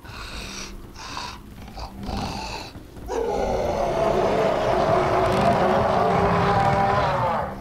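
A few short noisy bursts, then about three seconds in a loud, sustained, animal-like growl with a wavering pitch that cuts off abruptly near the end.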